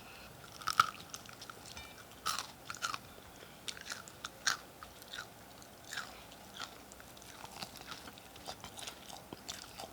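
Person biting into and chewing crispy fried chicken, with irregular crunches of the breaded coating.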